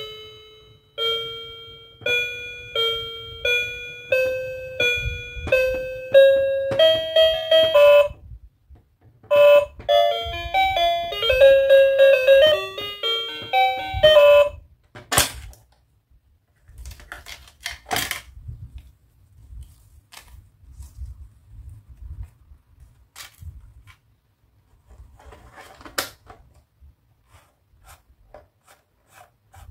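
Toy cash register keypad: each key press gives a short electronic beep, about a dozen beeps over eight seconds stepping mostly upward in pitch, then a quick electronic tune plays for about five seconds. After that, scattered plastic clicks and knocks as the toy is handled.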